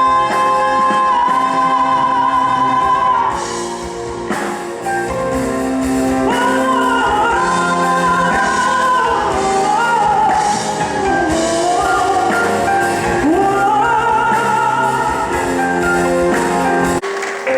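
Live music: a voice sings a wordless, gliding melody over sustained instrumental accompaniment, changing abruptly about a second before the end.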